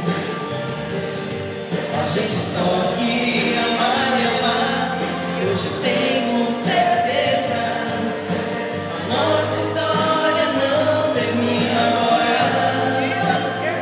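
Music: a song with sung vocals, choir-like voices over instrumental backing, in lines with no clear words.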